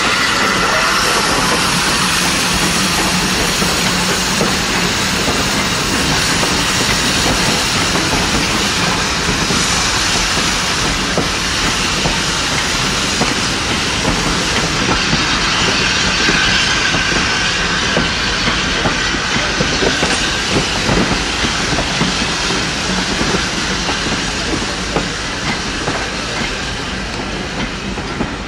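Steam train hauled by LNER J27 0-6-0 locomotive 65894 pulling slowly past: a steady rush of steam and running noise, with the coaches' wheels clicking over the rail joints more and more from about halfway, fading a little near the end.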